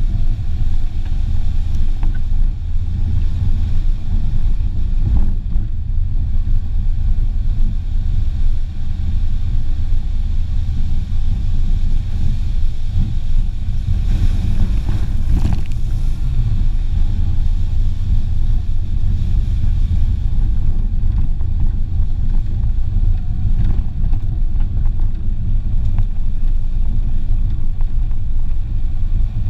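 Renault Clio driving along a muddy dirt track, heard from a camera on the bonnet: a steady low rumble of engine, tyres and wind on the microphone. About halfway through, a brief louder, hissier patch as the car splashes through a large muddy puddle.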